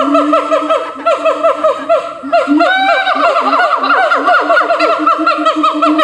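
Siamangs calling in their territorial chorus: a rapid run of short hooting notes, about six or seven a second, from more than one animal over a lower pulsing boom, with one longer rising-and-falling note about three seconds in.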